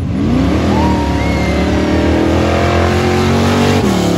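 Square-body Chevrolet pickup's engine revving hard under full throttle as the truck launches down a dirt mud-race track. The pitch climbs steeply in the first second, holds high, then drops near the end.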